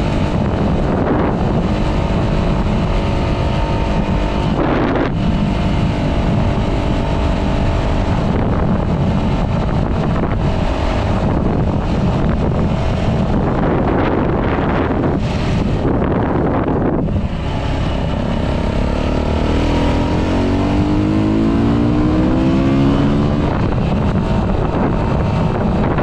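Heavy wind noise buffeting the GoPro's microphone over a 125cc motorcycle's engine running under way. The engine note breaks briefly twice and rises as the bike picks up speed about three-quarters of the way through.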